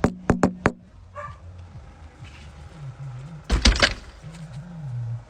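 A dog making low vocal sounds, with a few sharp clicks at the start and a louder noisy burst a little past halfway.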